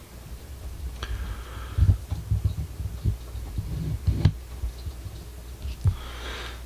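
Irregular low thumps and knocks of handling and movement close to the microphone, over a steady low hum.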